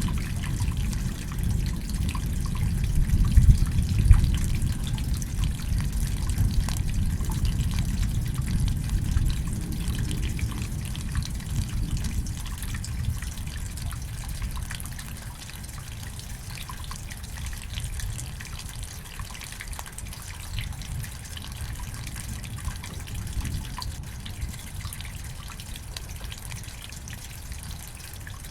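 Steady rain with close dripping and trickling water, under a low thunder rumble that is loudest about four seconds in and dies away by the middle.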